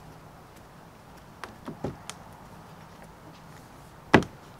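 Light plastic clicks and knocks as a GoPro extension pole is seated in a mount on a plastic kayak: a few small clicks about one and a half to two seconds in, then one sharp knock near the end.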